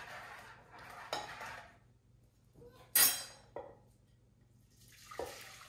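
Kitchen utensils working: a wire whisk scraping and tapping in a mixing bowl and a metal ladle against a saucepan. One sharp, loud clank about three seconds in, then two smaller knocks.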